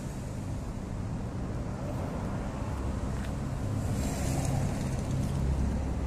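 Steady low rumble of motor vehicles, with faint hum bands and wind on the microphone.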